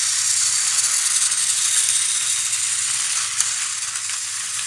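Two battery-powered toy Thomas & Friends trains running around a plastic track: the steady whir and rattle of their small motors, gears and wheels, with one brief click about three and a half seconds in.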